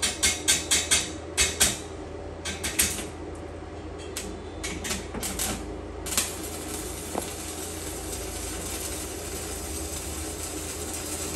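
Arc welding: a quick run of short crackling bursts as the electrode is struck against the steel and the arc catches and dies, then from about six seconds in the steady crackling hiss of the arc burning.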